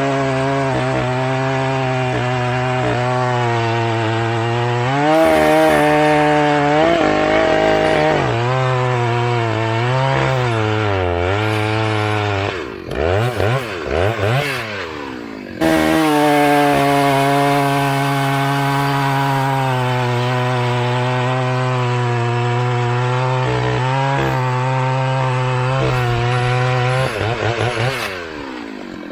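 Antique two-stroke chainsaw cutting hickory under load, its engine note sagging and recovering as it works through the wood. About twelve seconds in it leaves the cut briefly, revs swooping up and down, then bites back in for a long steady cut and eases off near the end.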